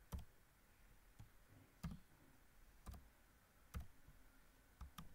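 Faint keystrokes on a computer keyboard as a line of C code is typed: about seven separate key clicks, unevenly spaced.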